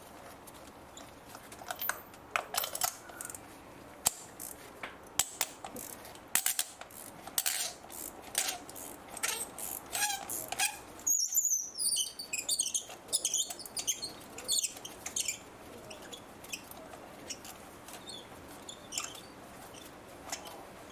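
Irregular metallic clicks of a ratchet and spark-plug socket working on the engine, with a run of squeaks from about eleven seconds in as the spark plugs are turned loose.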